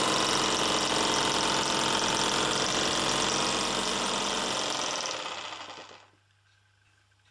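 Peake #4 "Powerhouse" miniature beam engine running fast: a rapid run of exhaust beats and mechanical clatter. It winds down and stops about five to six seconds in.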